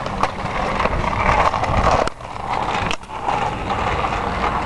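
Kick scooter wheels rolling over a concrete ramp, a steady noisy rumble that drops away briefly about two seconds in and again about three seconds in.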